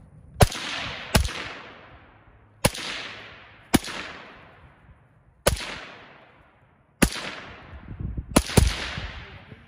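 Bullpup rifle firing eight single shots at an uneven pace, one to two seconds apart, each trailing off in a long echo; the last two come in quick succession near the end.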